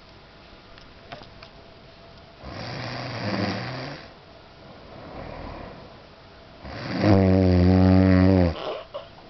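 A sleeping person snoring: a rasping snore about two and a half seconds in, a faint breath, then a louder snore with a steady low pitch about seven seconds in, lasting about a second and a half.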